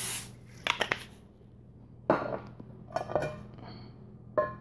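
The hiss of an aerosol can of Pam cooking spray cuts off at the very start. Then comes metal cookware being handled: a quick run of three clicks, then a few separate clinks and knocks, some ringing briefly.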